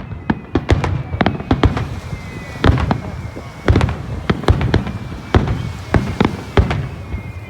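Fireworks shells bursting in quick succession: many sharp bangs, several a second and some overlapping, over a continuous low rumble of echoing reports.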